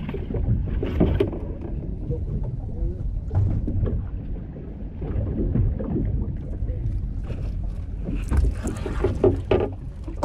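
Sounds aboard a small fishing boat at sea: a steady low rumble, with scattered knocks and clatter, busiest near the end.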